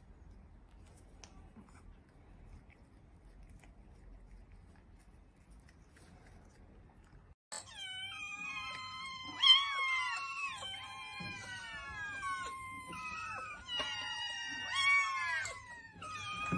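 A large crowd of kittens meowing all at once, many high meows falling in pitch and overlapping, starting suddenly about halfway through. Before that, only faint room sound.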